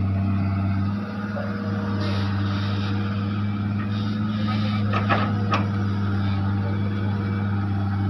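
Hitachi hydraulic excavator's diesel engine running steadily under load as it swings a heavy log with its grapple, with two sharp knocks about five seconds in.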